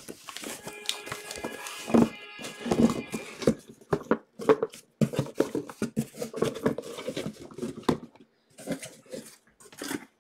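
Cardboard shipping case being handled and opened, its card boxes pulled out and set down on top of one another on a table: cardboard scraping and rustling with a run of knocks and thumps.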